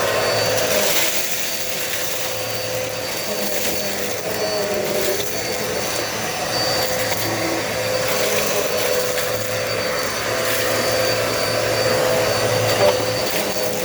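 Dirt Devil Multi-Surface vacuum cleaner running steadily, its motor giving an even whine over a rush of air, as it is worked over a deck.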